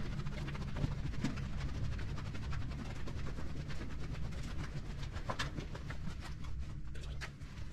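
Footsteps crunching and scuffing on a gritty concrete tunnel floor, irregular short clicks, over a steady low hum that fades near the end.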